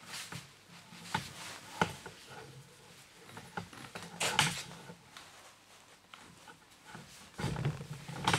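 Handling noise as thick 10 mm earth cable is wound around a length of copper pipe by gloved hands: scattered light clicks and taps with short rubbing scrapes, the loudest about four seconds in and again near the end.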